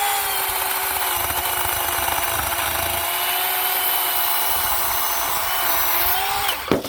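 Worx 40V 14-inch cordless electric chainsaw cutting through wood: a steady electric motor whine that drops a little in pitch as the chain bites, over the rasp of the chain in the wood. It stops suddenly near the end as the trigger is let go.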